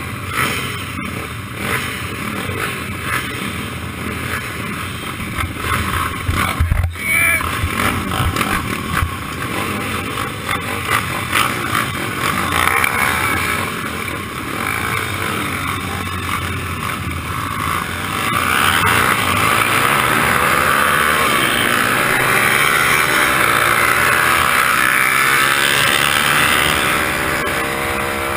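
Several small pit-bike engines idling and blipping on the start grid, then the onboard bike's engine pulling away and accelerating, its pitch rising near the end. From about two-thirds of the way through, wind rushes loudly over the microphone as speed builds. There is one short knock about a quarter of the way in.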